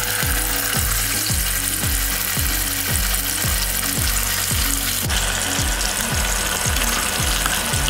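Fish pieces deep-frying in hot oil in a pot, a steady sizzle. Background music with a steady low beat, about two beats a second, plays throughout.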